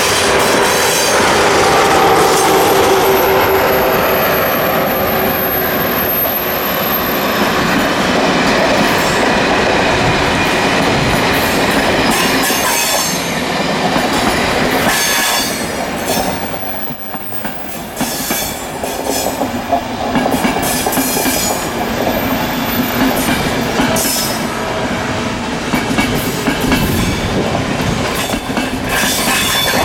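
A train passing close by on electrified main-line track: a steady, loud rumble of wheels on rail with a squealing tone through the first several seconds. Rhythmic clicking of wheels over rail joints comes through in the second half.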